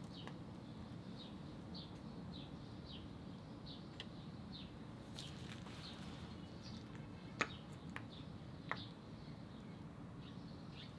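A small bird chirping faintly and repeatedly, short high notes about one or two a second, over a low steady hum. Two or three sharp clicks sound in the second half.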